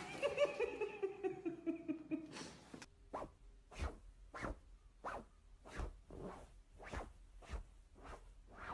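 A drawn-out squeal falling in pitch for about two seconds. It is followed by a regular series of short scratchy swishes, about one and a half a second, from a cat's paws stepping on a wooden floor.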